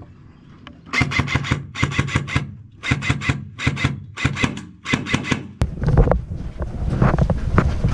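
Airsoft rifle firing about six short, rapid bursts of three to five shots each. A little over two-thirds of the way in, this gives way abruptly to low rustling and wind noise on the microphone.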